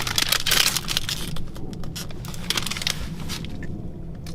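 Crinkling, rustling handling noise in two bursts, the first in the opening second and a half and another shortly before three seconds, with scattered sharp clicks, over a steady low hum.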